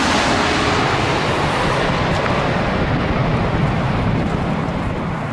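Jet aircraft engine noise, a loud steady rush that loses its high, hissing edge from about two seconds in as the aircraft draws away.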